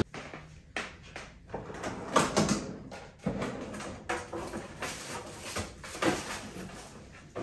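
A series of irregular knocks, clatters and rustles from things being handled in a kitchen, with no steady sound between them.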